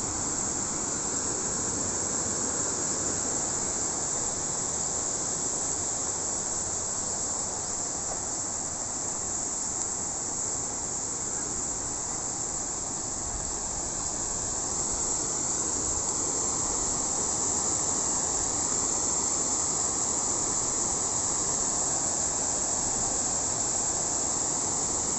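Steady rush of water spilling over a low concrete weir and down its steps, with a high insect drone over it; the water grows a little louder about fifteen seconds in.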